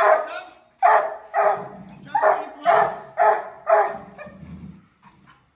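A dog barking over and over, about two barks a second, the barks fading away after about four seconds.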